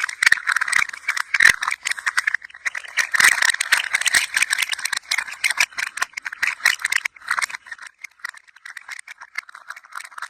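Hand-held rattle toy being moved: a dense, rapid clatter of many small hard pieces rattling together, which thins out and grows quieter after about seven seconds.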